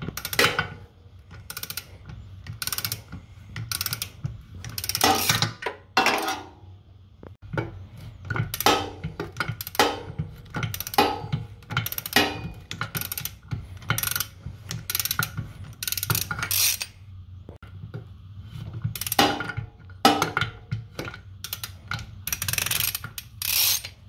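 Socket wrench ratchet clicking in short bursts, about once a second, as the tight 50 mm drive-shaft nut at the differential is worked loose turn by turn.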